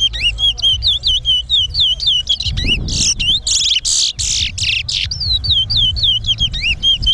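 Towa-towa (chestnut-bellied seed finch) whistling in a song competition: a fast run of short, falling whistled notes, about three a second. From about three to five seconds in, a louder, harsher burst of notes.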